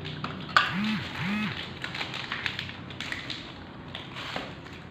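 Light taps and clicks of printer packaging and ink bottles being handled, with a sharp click about half a second in. Two short hummed voice sounds rise and fall about a second in.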